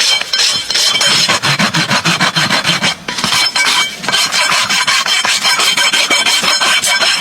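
Farrier's rasp being drawn across a horse's hoof wall in quick repeated strokes, a steady scraping of steel on horn.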